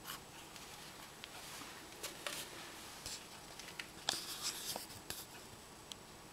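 Quiet room tone with faint scattered clicks and brief rustles, the densest cluster of rustling about four seconds in.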